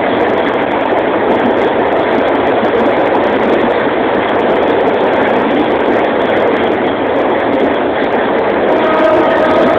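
Passenger train running along the track, heard from inside the coach as a steady rumble and rattle. About a second before the end, a horn starts sounding one steady tone.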